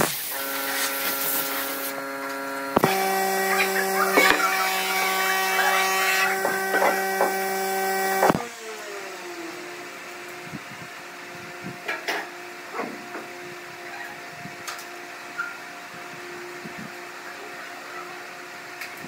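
A power tool's motor runs steadily for about eight seconds, its pitch shifting once near three seconds, then stops abruptly. After that comes a low steady hum with a few light taps and clicks as a cardboard template is handled and traced with a marker on a pine block.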